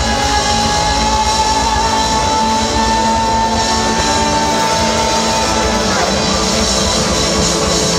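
Band playing rock music on acoustic guitars and drums, with a long held note through the first six seconds or so.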